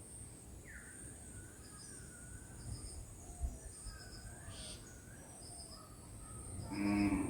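Village birds chirping and calling over a steady high-pitched insect drone, with short repeated chirps and wavering whistled notes. A louder, harsh call comes near the end.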